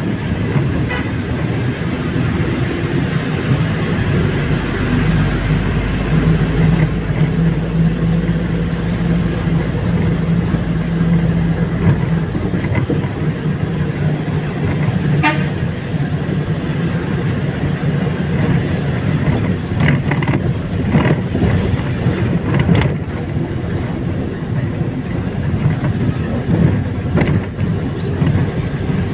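Engine and road noise heard from inside a moving vehicle in city traffic, a steady engine drone under a rushing haze. A brief horn toot sounds about halfway through, and a few short sharp sounds follow a few seconds later.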